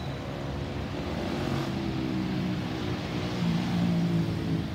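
Low engine drone with a few steady low tones over a noisy hum, growing louder from about three seconds in as the tones dip slightly in pitch.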